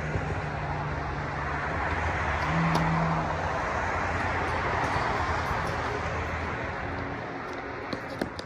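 A motor vehicle's engine passing by, swelling to a peak about three seconds in and then fading away. A couple of sharp tennis ball hits near the end.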